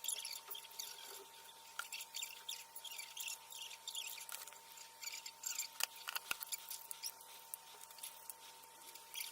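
Many light, irregular clicks and scratches of small tools and plastic parts as a small action camera is taken apart by hand, over a faint steady high hum.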